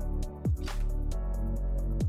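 Background electronic music with a steady beat: falling bass drum hits, sustained synth chords and hi-hat strokes.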